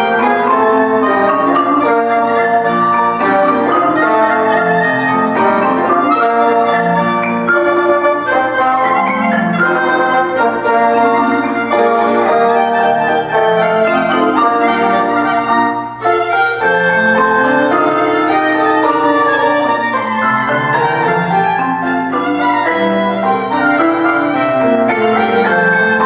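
Small chamber ensemble playing silent-film photoplay music: violin carrying the tune over piano, with clarinet, trombone and mallet percussion. The music dips briefly about two-thirds of the way through, then carries on.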